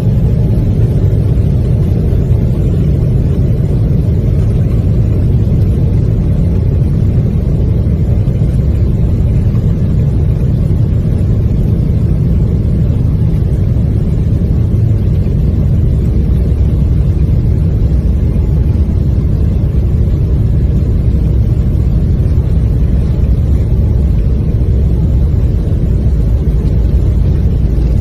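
Steady low rumble of an airliner accelerating on its takeoff run.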